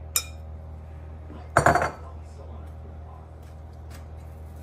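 Kitchen utensil clinking and clattering against a glass dish of chips and ground beef: a sharp click near the start, a louder clatter about a second and a half in, and a few faint ticks later, over a steady low hum.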